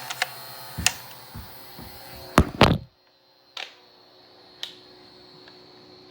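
Nerf dart blaster being handled and fired: a series of separate sharp clicks and dull thunks, the loudest pair about two and a half seconds in, then two more single clicks about a second apart.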